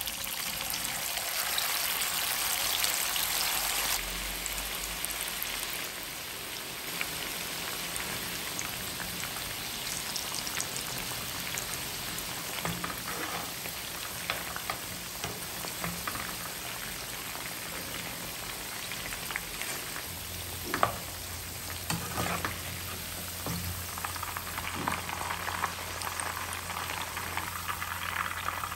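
Marinated chicken pieces sizzling and bubbling as they shallow-fry in hot oil in a frying pan, louder for the first few seconds. A few sharp clicks of a metal spoon against the pan come in the second half as the pieces are turned and lifted.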